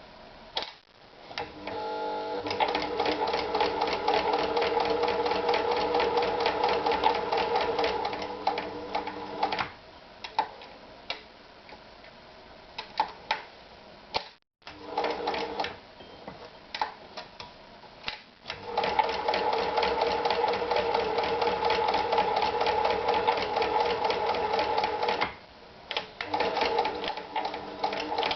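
Privileg Super Automatik TopStar 796 sewing machine running in fast, even stitching runs, stopping after several seconds. In the pauses between runs there are single mechanical clicks before it starts up again.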